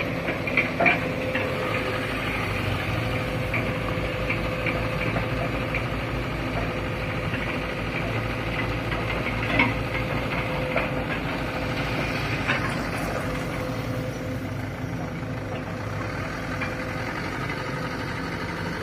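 Diesel engines of a Mitsubishi Fuso Canter dump truck and an excavator idling steadily: a low, even throb with a faint steady whine and a few light knocks.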